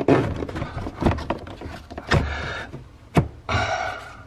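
Handling noise from work in a stripped car trunk: several sharp knocks and two short scraping rustles as trunk trim and old audio wiring are pulled at by hand.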